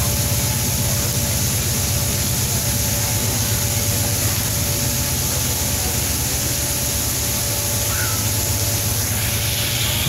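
Steady rumble of a long coal train's hopper cars rolling past, with a faint steady tone above the rumble.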